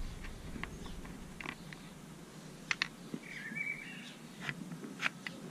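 A bird chirping outdoors, one short burst of chirps a little past the middle, with several sharp clicks scattered through.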